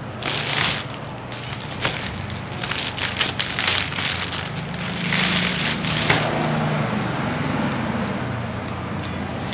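Plastic sleeves and corrugated cardboard wrapping of rose bunches crinkling and rustling as they are handled and opened. The crackling is busiest in the first six seconds, then softer handling follows.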